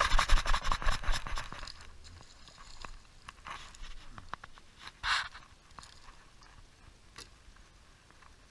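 Fishing reel cranked quickly, a dense rapid clicking and rattling for about two seconds as a small fish is reeled in, followed by a few scattered knocks and rustles as it is lifted from the water.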